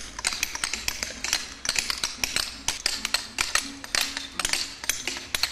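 Hammer and chisel tapping on sandstone blocks: sharp, irregular taps, several a second, under faint low music.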